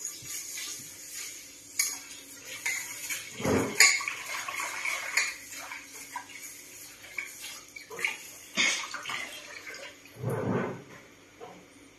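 Rice being washed by hand in a rice-cooker inner pot under a running kitchen tap: water running and splashing, with irregular clatters of the pot against the sink and two dull knocks, about three and a half seconds in and near the end.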